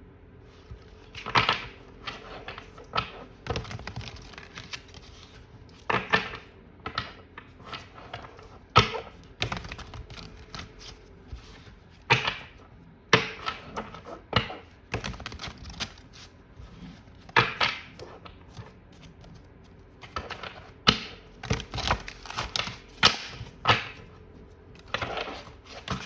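A tarot deck being shuffled and handled by hand: irregular sharp slaps and clicks of cards with softer rustling between.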